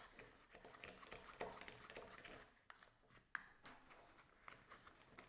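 Near silence with faint handling noises: a few light clicks and soft rustles as a replacement CO2 cartridge is screwed into the Restube buoy's trigger unit.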